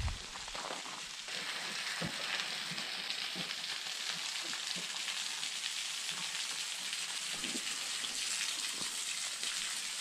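Thin waterfall pouring from the rim of a sandstone bluff: a steady hiss of falling water spattering onto the rock and sand below, with a few faint taps.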